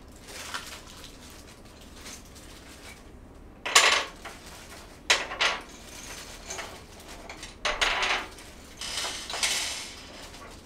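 Dresser parts and assembly hardware being handled, with hard objects knocking and clattering. The loudest knock comes about four seconds in, two more follow about a second later, and a run of clatter comes near the end.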